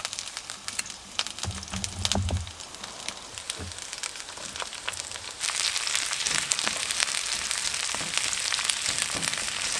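Food frying in oil in a pan, a steady crackling sizzle with many small spits. About five and a half seconds in, the sizzling suddenly grows louder and denser, and there is a short low thump around two seconds in.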